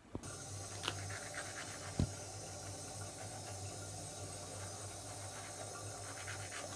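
Toothbrush scrubbing teeth: a soft, quick rasping over a low steady hum, with a couple of small sharp ticks, the louder about two seconds in.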